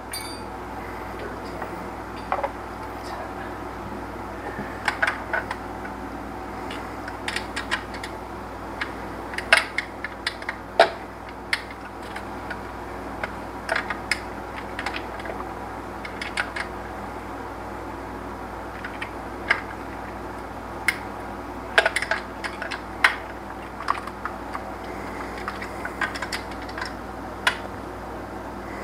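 Irregular light metallic clicks and taps of a wrench working on the alternator's positive-lead nut, over a steady low background hum.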